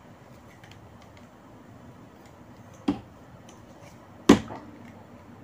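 Two sharp plastic clicks about a second and a half apart, the second louder, with a few faint ticks around them: the plastic head and fittings of a 3366 tripod being handled and snapped into place by hand.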